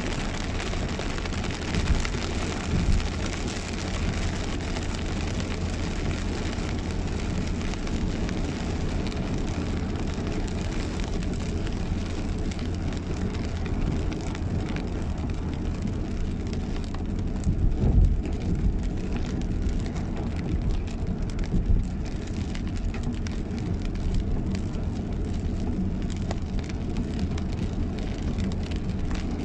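Heavy rain hitting a moving car, heard from inside the cabin, over a steady low rumble of tyres on the wet road. A few brief louder thumps come about two, three and eighteen seconds in.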